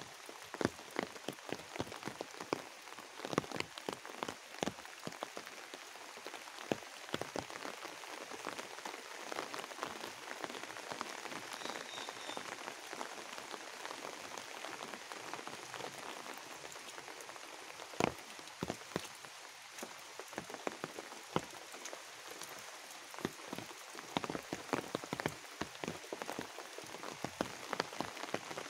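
Steady rain: a constant hiss with a dense, irregular patter of individual drops striking close by.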